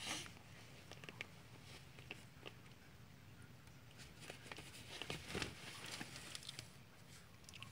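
Small dog chewing and mouthing a plush squeaky toy: faint, scattered soft clicks and rustles, busiest around four to five and a half seconds in.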